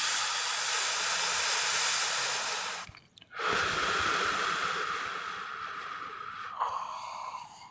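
Sleeping Labrador puppy breathing through its nose against a blanket: two long, hissing breaths with a short pause between them about three seconds in.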